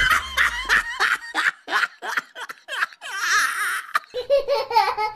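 Laughter: a quick run of short, high laughing bursts, then a lower-pitched laugh near the end.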